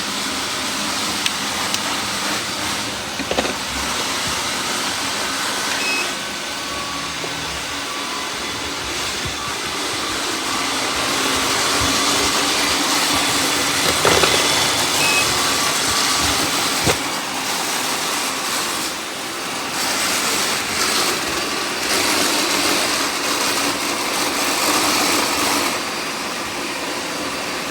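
Several robot vacuums running at once: a steady whirring hiss of suction motors and spinning brushes, with a couple of faint short beeps and a few sharp knocks.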